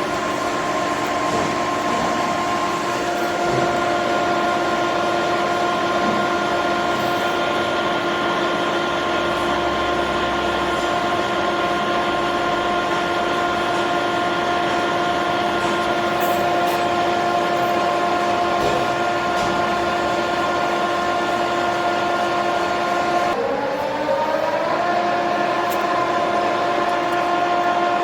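Machine tool running steadily with a constant multi-tone motor and gear whine over mechanical noise. About 23 seconds in the pitch sags and climbs back to speed over a couple of seconds.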